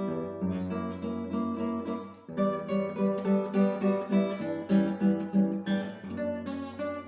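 Solo acoustic guitar playing quick, evenly repeated plucked note figures. The playing dips briefly a little over two seconds in, then resumes with stronger accented notes.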